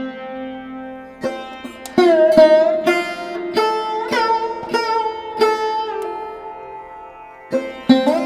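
Background instrumental music: a plucked string instrument playing single notes, many of them bent upward or downward in pitch after the pluck, with a short pause near the end.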